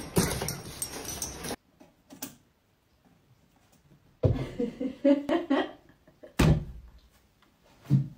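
A window sash knocks and bangs as a cat hanging from it pulls it: a thud, then a few short pitched sounds, then a sharp bang and a softer knock near the end.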